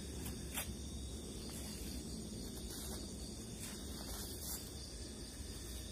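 Crickets chirring steadily in a high, even drone, over a low rumble, with a few faint clicks.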